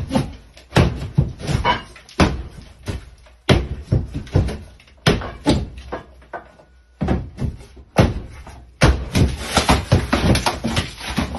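Hartford plaster hook striking and ripping through sheetrock: a quick series of sharp thuds, each followed by the gypsum board cracking and breaking away, with a short lull about six seconds in.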